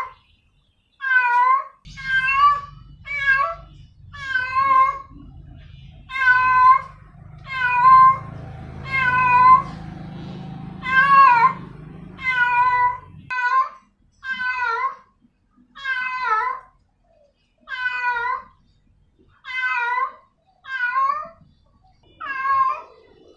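Female cat in heat calling for a male: a long run of loud, wavering meows repeated about once a second.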